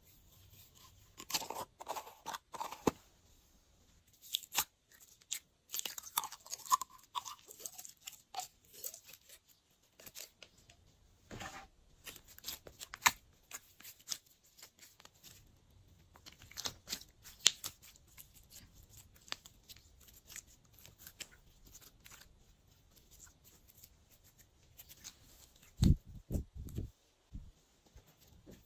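Glossy slime being mixed and squished by hand, making irregular sticky clicks, pops and crackles, with a few louder, deeper thuds near the end.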